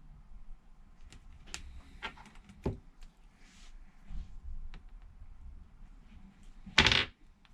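Small clicks and taps of hand tools and tape being handled on a repair bench. Near the end comes one short, louder rasping noise.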